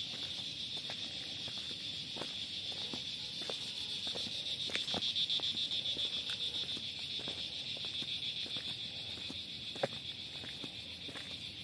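Evening chorus of insects, a steady high-pitched trilling buzz, with the scuff of footsteps walking on a paved road and one sharper step or knock near the end.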